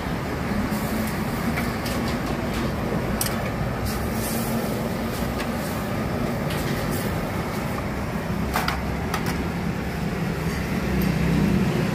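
Steady rushing roar of a high-pressure gas burner under a soup pot, with a few sharp clinks of a metal ladle against the pot.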